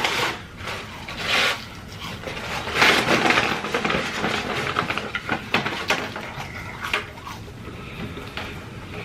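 Close-miked mukbang eating sounds: chewing and handling of McDonald's food, with irregular rustles and clicks, loudest about 1.5 s and 3 s in.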